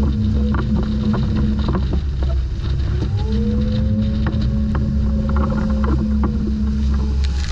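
Strong wind buffeting the microphone and waves rushing along the hull of a sailboat running fast in heavy seas. Over the rumble, a steady hum whose pitch slowly rises and falls, and frequent short clicks and knocks of deck gear.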